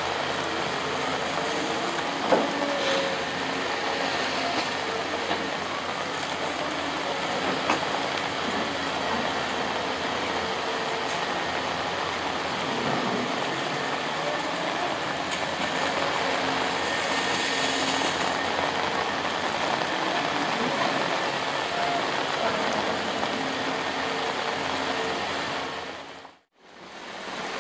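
Steady vehicle noise with a low engine hum under a constant hiss, broken by a sudden cut near the end.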